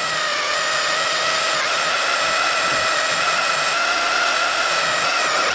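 Kobalt 24-volt cordless drill running steadily under load, boring a hole through the steel sawmill track. The motor whine holds one even pitch and cuts off suddenly at the end.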